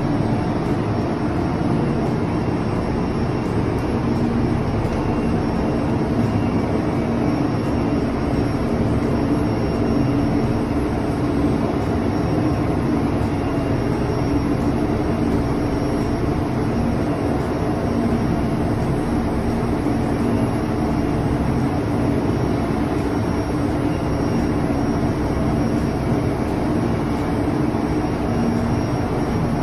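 Steady machinery drone of a ship's engine room, with a low hum in it.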